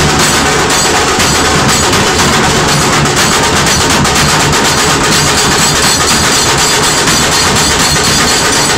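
Several large Maharashtrian dhol barrel drums beaten together with sticks, a loud, dense and unbroken barrage of beats.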